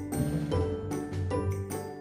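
Background music: a light tune of bright, pitched notes over a bass line, with a steady beat.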